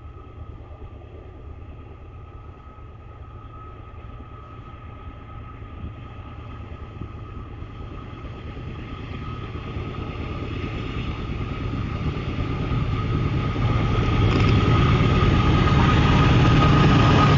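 Two CSX diesel freight locomotives approaching under load on an upgrade, their engine rumble and the train's noise growing steadily louder until the lead unit is close by near the end. A steady high whine runs through the sound.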